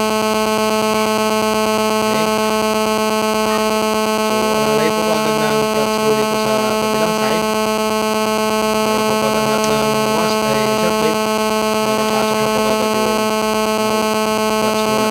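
Loud, steady electrical buzz: a constant hum with many overtones that never changes pitch, with faint wavering sounds beneath it.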